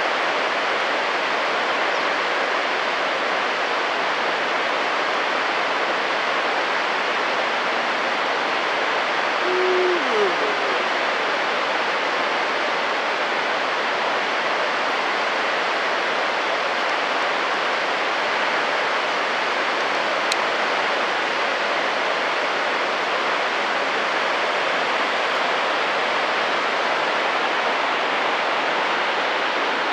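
Victoria Falls' falling water making a steady, even rushing noise. About ten seconds in, a brief pitched sound drops in pitch above it.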